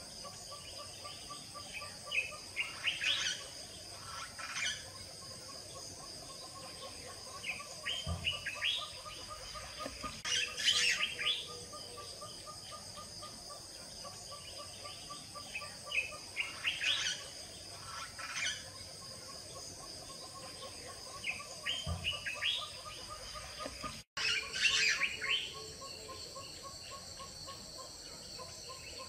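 Birds chirping in short, repeated bursts over a steady high insect drone and a fast, even train of short low pulses.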